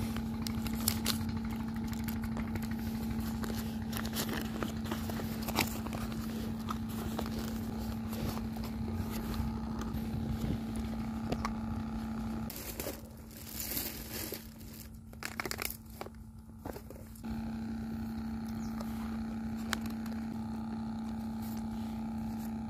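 Paper food wrapper crinkling and rustling as it is unfolded by hand. A steady low hum runs underneath and drops out for a few seconds in the middle.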